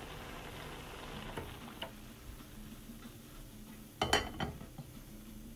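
Chickpeas bubbling at a boil in a pot, a steady hiss that slowly fades. About four seconds in, a glass lid is set on the pot with a sharp clink that rings briefly, followed by a few small knocks.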